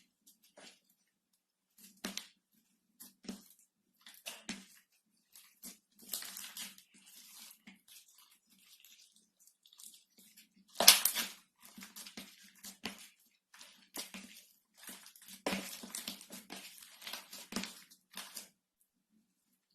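Slime being squished and pressed by hand: irregular wet crackles and pops, with the loudest burst about eleven seconds in.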